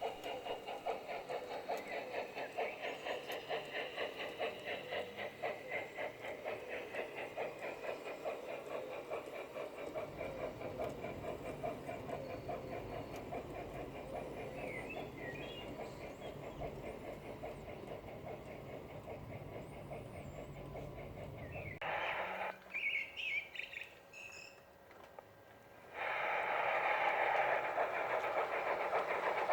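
Gauge 1 electric model train running on outdoor garden track: its motor hums and its wheels click over the rail joints in a fast, steady rhythm. Birds chirp now and then. The train sound drops away for a few seconds near the end, then comes back louder.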